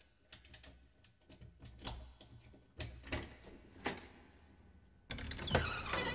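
Faint, irregular clicks and light knocks of a door latch and handle being worked, then the door opening about five seconds in with a short falling sliding sound.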